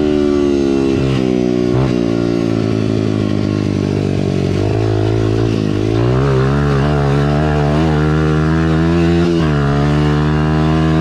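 Honda dirt bike's engine running under throttle while being ridden. Its pitch falls and climbs again several times, about two seconds in, near six seconds and near nine and a half seconds.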